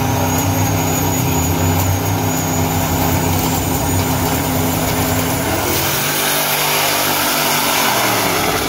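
Two big-rim donk drag cars' V8 engines held at a steady high rev on the start line, then launching about six seconds in: the steady engine note breaks into a rougher, noisier rush as they pull away down the track.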